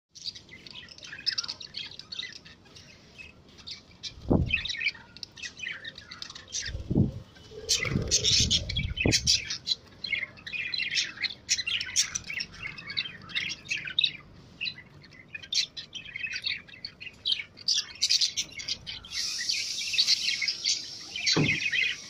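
Budgerigars chirping and chattering in quick, short, high calls, with a few low thuds in the first half and one near the end.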